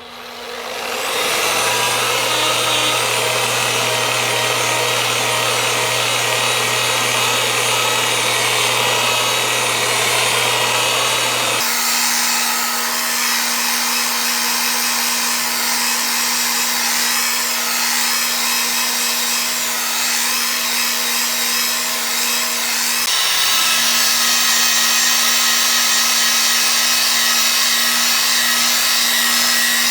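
Power glass polisher running with its pad rubbing on window glass, a steady motor hum under a broad scrubbing noise, polishing out deep weld spatter burns and scratches. The hum changes pitch abruptly about twelve seconds in and again a little after twenty seconds.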